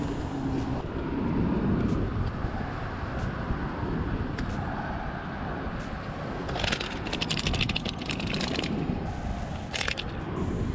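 Wind buffeting the microphone, a steady rush with a low rumble. About two-thirds through come a couple of seconds of rapid crackling clicks, and a short crackle near the end, as the fish and measuring tape are handled.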